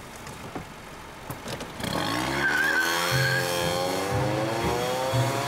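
A car engine revving up hard with a brief tyre squeal about two and a half seconds in, its pitch climbing and then holding. A music track with a pulsing bass line comes in alongside it.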